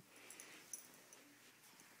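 Near silence, with faint rustling and a few light clicks.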